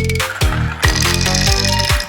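Upbeat electronic background music with a kick drum on a steady beat about twice a second and pitched synth notes above it.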